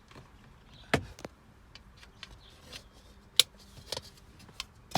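Sharp plastic clicks and taps at irregular intervals, a few of them louder, from interior trim being pried and handled.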